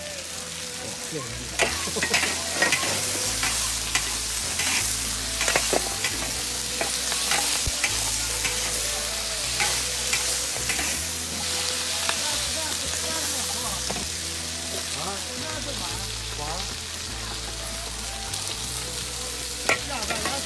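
Food sizzling in a large wok over a fire while a metal spatula stirs it, scraping and clanking against the wok with sharp clanks now and then.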